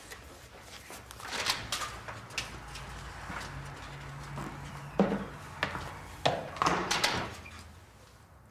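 Scattered knocks and clunks of objects being handled and moved about, with the sharpest few knocks coming in quick succession in the second half.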